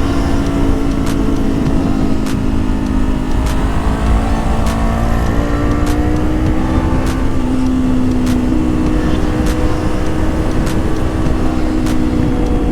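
Honda CBR500R's parallel-twin engine running under load on a winding road, its note drifting gently down and back up with the throttle. A faint tick repeats about once a second under it.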